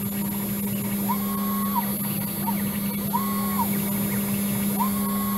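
CNC router running a clean-up pass with a 1/8-inch two-flute end mill. Under a steady spindle hum, the stepper motors whine about four times as the axes make short moves, each whine rising in pitch, holding and falling away.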